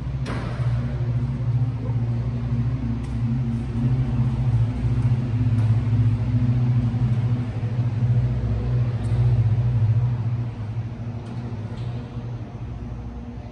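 A steady, loud, low mechanical hum or drone from an engine or motor, easing off a little about ten seconds in.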